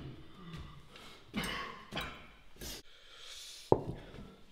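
A few soft knocks and shuffles of people moving at a table, then a sharp clink with a brief ring near the end: a ceramic dinner plate knocking on the table.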